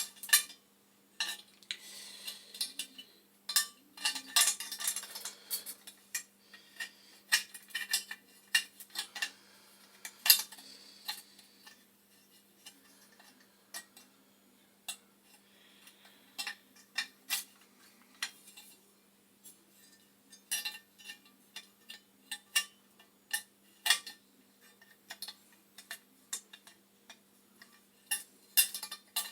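Small metal parts and hand tools clicking and clinking at irregular intervals during hands-on work on a gas boiler's pilot assembly, over a faint steady low hum.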